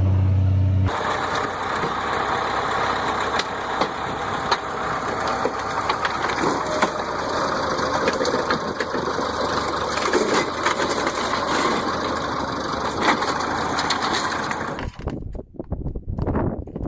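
Heavy-equipment engine running steadily with a noisy rumble and scattered sharp knocks; it cuts off abruptly near the end.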